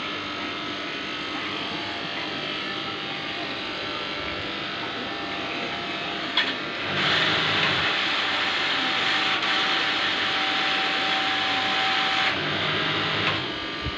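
MacK 8-inch straight-knife cloth cutting machine running, its vertical reciprocating blade cutting down through a thick stack of fabric layers. The cutting grows louder and noisier about halfway through for some five seconds, then eases.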